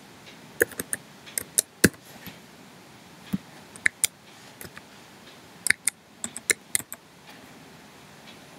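Computer keyboard typing: sharp key clicks in short irregular runs with pauses between, as a word and then a number are typed.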